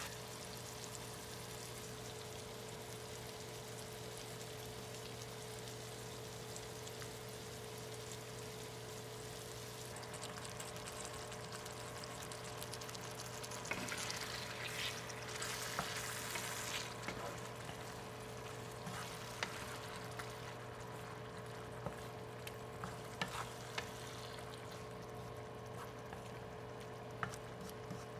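Onions, peppers and bacon sizzling in a frying pan over a steady low hum. About 14 s in, canned pork and beans go in with a louder, wetter sizzle that lasts a few seconds, then a wooden spatula stirs the pan with scattered clicks and scrapes.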